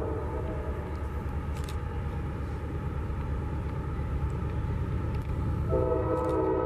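Approaching CSX freight train led by diesel locomotives: a steady low rumble, then the locomotive's air horn sounds a sustained multi-note chord starting near the end.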